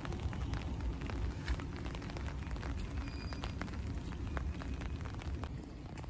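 Electric train running past on the tracks, a steady low rumble of wheels on rail that eases off about five and a half seconds in. Raindrops tick and patter throughout.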